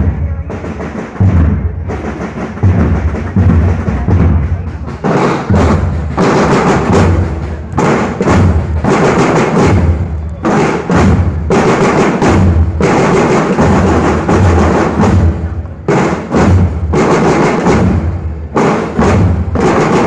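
School marching band drums playing a steady parade beat: bass drum strokes under snare drum patterns, which grow busier about five seconds in.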